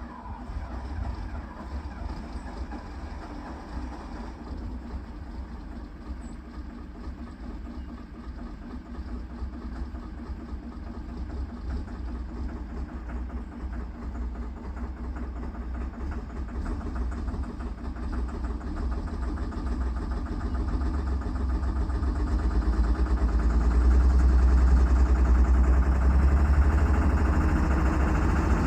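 Case 125B excavator's diesel engine running just after start-up, steady at first, then growing louder over several seconds about two-thirds of the way in and holding at that higher level.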